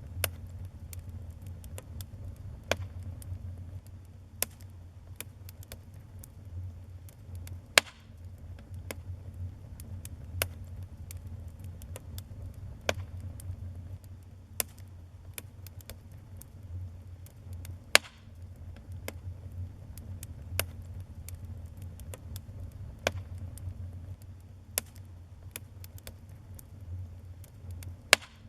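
Wood fire burning in a fireplace and crackling: a steady low rumble of the flames with irregular sharp pops and snaps, a few of them much louder than the rest.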